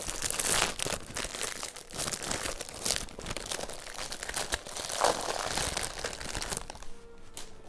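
Perfume box packaging being roughly torn open and crumpled, a dense crinkling and tearing that stops near the end.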